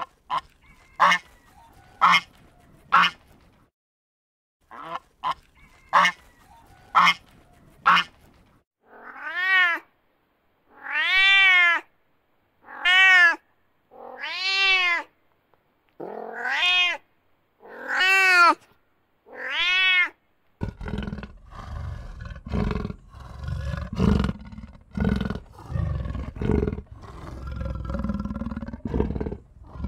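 A cat meowing seven times, each drawn-out meow rising and then falling in pitch. Before the meows comes a run of short, sharp calls about once a second, and about two-thirds of the way through the meows give way to a dense run of low, rough animal calls.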